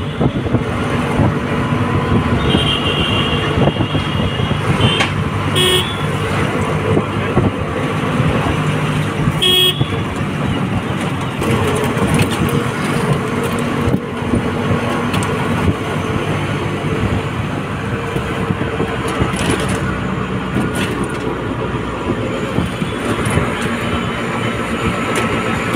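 Riding in an auto-rickshaw in traffic: a steady engine and road rumble, with vehicle horns honking, one held for a couple of seconds near the start and two short toots a few seconds later.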